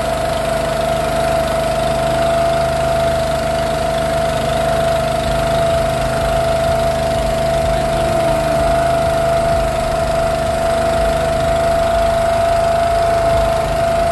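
A boat's engine running steadily at an even speed, with a constant droning tone.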